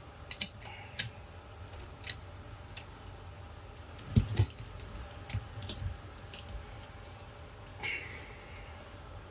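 Hard drive and plastic NAS drive caddy being handled and fitted together with Velcro pads: scattered small clicks and scrapes, with a louder knock about four seconds in.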